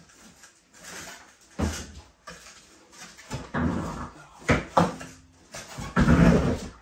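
Irregular knocks, thuds and scraping from a snowmobile being handled and tipped onto its side, with the loudest, longer clatter about six seconds in.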